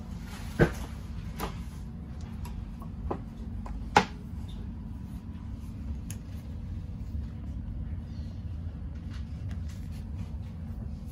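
Steady low hum inside a stationary ETR600 high-speed train carriage, broken by a few sharp knocks and clicks from handling the seat and table fittings. The loudest knocks come about half a second in and about four seconds in.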